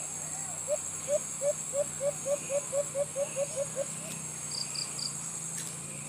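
White-eared brown dove calling: a series of about a dozen low hooting notes that come faster and faster and then stop. A steady high insect drone runs underneath, and a small bird chirps three times near the end.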